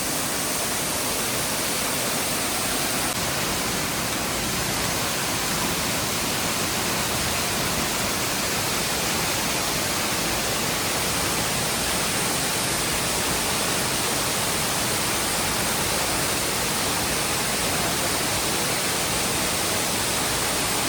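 Waterfall rushing: a steady, even sound of falling water.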